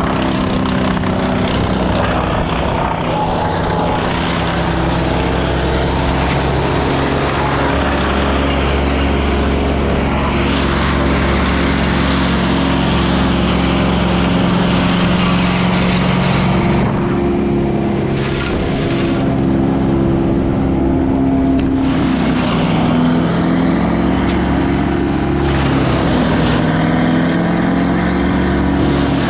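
An engine running steadily under load, its pitch shifting slightly about halfway through.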